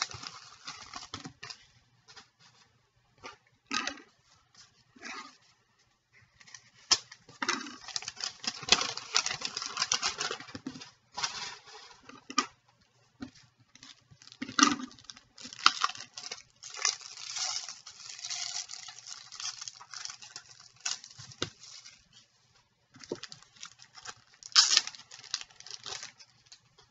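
Card packs and plastic sleeves being handled and opened: irregular crinkling and rustling of wrappers, with scattered light taps and clicks.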